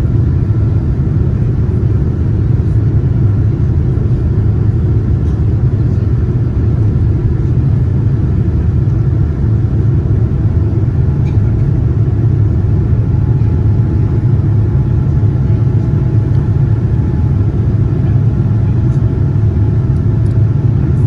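Steady low rumble of a Boeing 787-9's GEnx engines and airflow heard from inside the passenger cabin in flight, with faint steady hums higher up.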